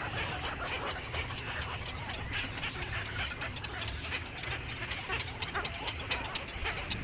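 A flock of small birds chirping and chattering at once: a dense, continuous stream of quick, high notes over a low steady rumble.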